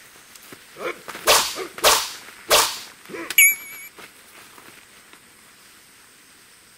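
Sword-fight sound effects: three sharp katana swishes about half a second apart, then a metal-on-metal clash that rings briefly with a wavering tone. Short vocal cries from the fighters come between them.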